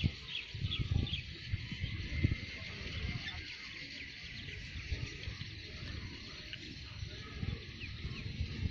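Open-field ambience: birds chirping over a steady high hiss, with gusts of wind rumbling on the phone microphone, strongest in the first few seconds.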